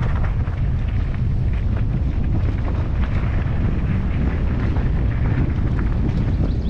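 Steady rumble of wind buffeting the camera microphone while a mountain bike rolls over a rough trail, with scattered small clicks and rattles from the tyres and bike.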